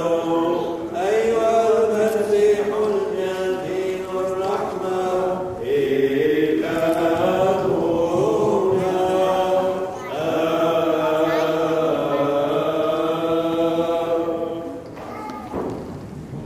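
Several voices chanting a slow liturgical hymn together, with long held notes. The chant dies down near the end.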